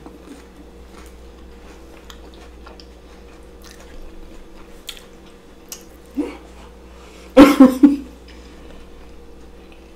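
A person chewing a mouthful of deep-fried king crab, with soft, faint mouth and crunch clicks. About seven and a half seconds in comes a short, loud burst of voice in several quick pulses, after a brief softer vocal sound a second earlier.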